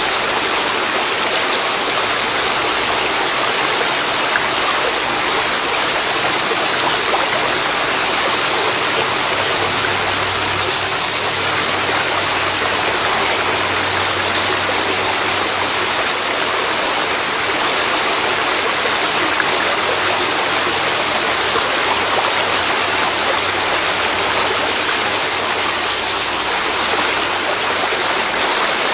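Waterfall pouring into a river, a loud, steady rush of water with no breaks.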